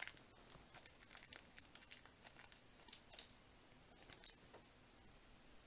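Faint, irregular scratching and clicking of small scale-model parts being handled and fitted by hand, fading out after about four seconds.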